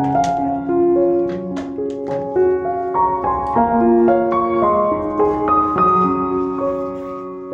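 Instrumental background music led by a keyboard instrument, one held note after another in a steady flow.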